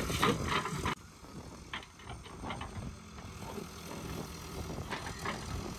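Backhoe loader's diesel engine running steadily while its hydraulic arm and bucket move, with a few faint knocks; the level drops sharply about a second in.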